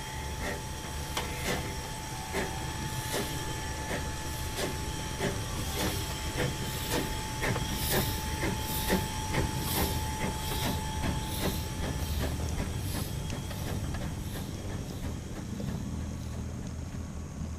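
N-scale model train rolling past, its wheels clicking over the rail joints about twice a second over a low rumble. A thin steady whine runs alongside and stops about twelve seconds in.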